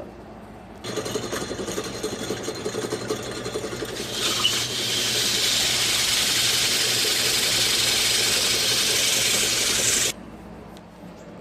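Drill press running with a pine block spinning in it as a makeshift lathe. A louder steady hiss joins about four seconds in, and the whole sound cuts off suddenly near the end.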